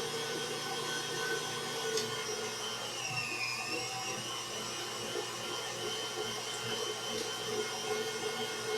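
Electric meat grinder running steadily with a motor whine as duck and pork are ground, the pitch dipping briefly about three seconds in.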